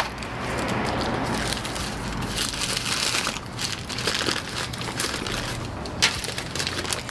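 Fast-food eating sounds: irregular crinkling and rustling of a paper burger wrapper, mixed with chewing and a few sharp crackles.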